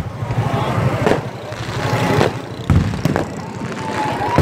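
Fireworks going off: several sharp bangs, roughly one a second, over a steady low rumble.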